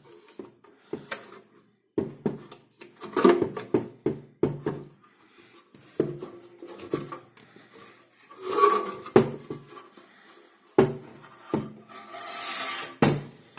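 Metal chassis of a tube signal generator being lifted out of its case and handled: a series of knocks and clunks with stretches of scraping. The longest scrape comes near the end and finishes with a sharp knock.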